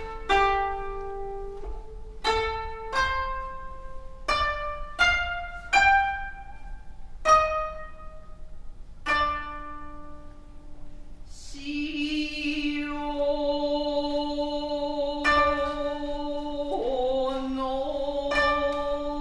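Koto played slowly, single plucked notes ringing out one at a time, some bent in pitch by pressing the string behind the bridge. About two-thirds of the way through, a voice enters on a long held note in Japanese classical singing style while the koto plucks on beneath it.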